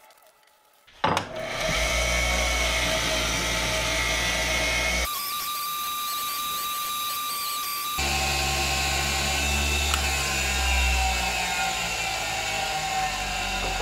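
Bench grinder fitted with a buffing wheel, switched on with a click about a second in and spinning up to a steady motor hum. In a middle stretch, from about 5 s to 8 s, it turns hissier with a high whine as a piece is held against the wheel.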